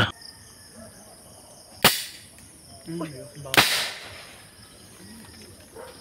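Two sharp rifle shots about a second and three quarters apart, the first the louder, over a steady high chirring of night insects.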